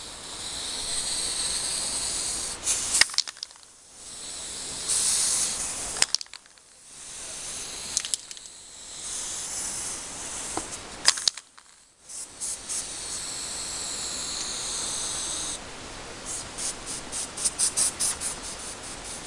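Aerosol spray-paint can hissing in several spells of one to three seconds, the longest about three seconds. Near the end the can is shaken, its mixing ball rattling quickly.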